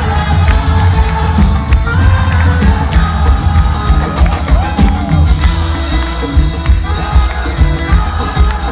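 A live band playing, with a steady low beat.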